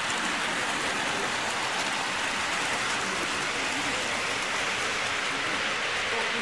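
Hornby O gauge tinplate model trains running on electrified tinplate track: a steady rattling noise of metal wheels on the metal rails.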